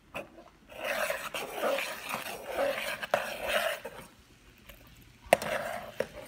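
Metal ladle stirring and scraping through an energy drink boiled down to a thick, bubbling syrup in a metal pot, with sharp clinks of the ladle against the pot; the loudest clink comes about five seconds in, after a quieter spell.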